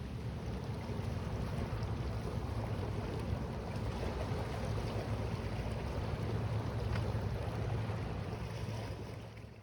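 Low, steady drone of a passing ship's engine heard across the sea, under a haze of wind and wave noise; it fades away near the end.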